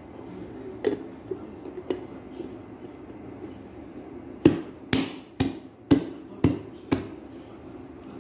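A few light clinks on a glass pitcher, then six sharp clicks about half a second apart as a red plastic snap-on lid is pressed down onto the pitcher's rim.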